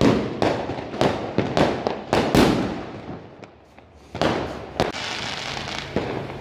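Diwali fireworks and firecrackers going off in quick succession: a string of sharp bangs, the loudest about two and a half seconds in, then after a short lull two more bangs and a spell of crackling.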